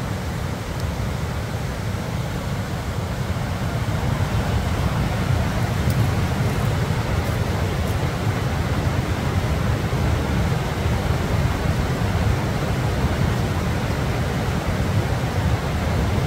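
Wind buffeting the microphone: a steady low rumble with no distinct events, getting a little louder about four seconds in.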